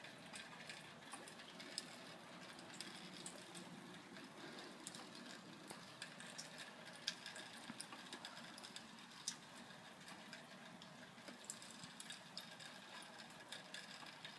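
Rain dripping, with irregular faint ticks of drops over a low steady hiss.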